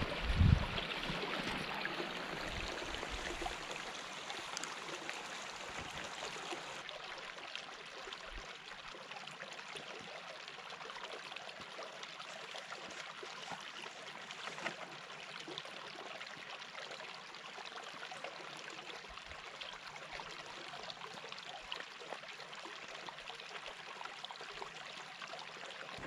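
Shallow rocky stream flowing steadily over stones. A brief low thump comes about half a second in.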